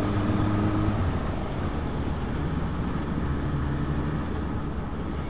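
Motorcycle engine running steadily while riding along a road, under steady wind noise. The engine note drops lower about a second in.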